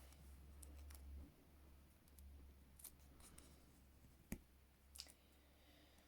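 Faint, crisp creases and rustles of a Post-it note being folded tightly into a small shim, with a few sharp ticks spread through otherwise near silence.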